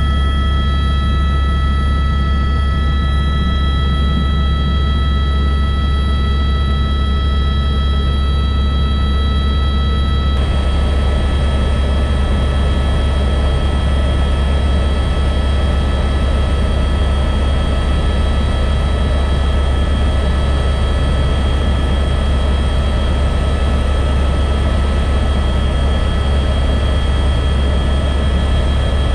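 Helicopter engine and main rotor running steadily in flight, heard from inside the cabin: a heavy low drone with several steady high whine tones over it. About ten seconds in, the hiss above the drone gets louder.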